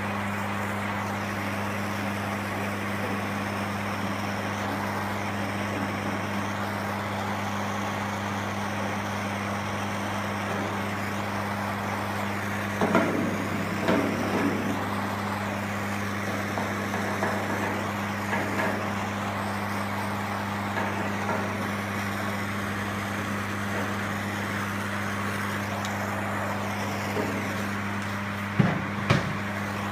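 Steady machine drone with a low hum and hiss. A few seconds of scraping and clatter come about halfway through, and two sharp knocks near the end.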